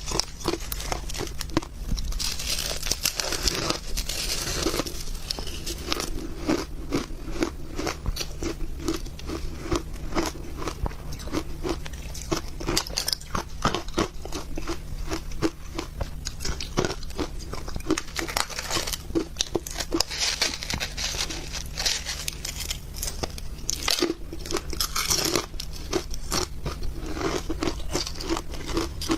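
Ice being bitten and chewed close to the microphone: a continuous run of crisp crunches.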